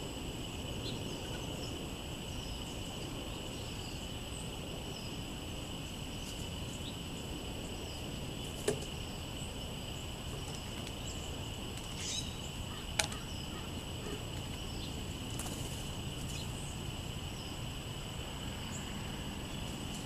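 Outdoor ambience of a steady high insect hum, with faint scattered bird chirps and two sharp taps a few seconds apart about halfway through.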